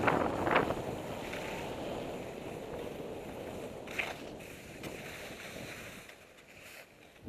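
Skis scraping and hissing over wet spring slush, with a sharper scrape about half a second in; the sound fades near the end as the skier slows down.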